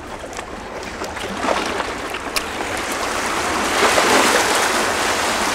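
Water splashing and washing against a rocky shoreline, a grainy rushing noise that grows steadily louder and is loudest from about four seconds in.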